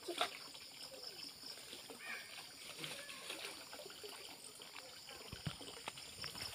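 Faint splashing and trickling water as a man wades waist-deep in muddy water, handling a fishing net, with one sharper splash just at the start.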